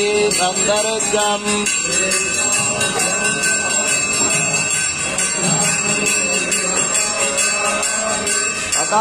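Temple hand bell rung continuously through the ritual bathing of the deity, over devotional music.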